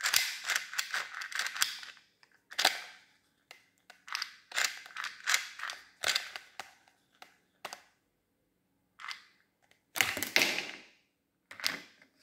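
Clear plastic fan parts handled and knocked against a plastic toy hand fan: a run of sharp clicks and clatters with short scraping rubs, loudest in the first two seconds and again about ten seconds in.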